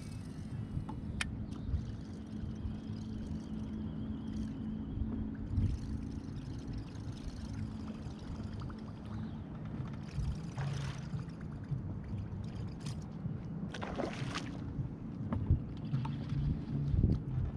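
Sounds aboard a fishing kayak on a lake: a steady low hum with water noise, a few sharp clicks, and two short rushing noises about ten and fourteen seconds in.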